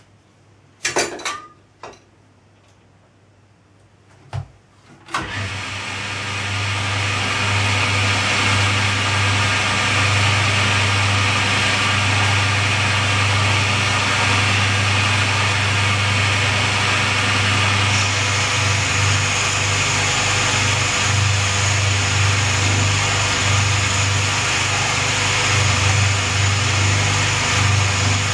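A few light clicks and knocks, then about five seconds in a machine-tool motor starts and runs steadily with a hum and a broad hiss while boring out a cast aluminium part on the final cut. About two-thirds of the way through a high, thin whine joins in.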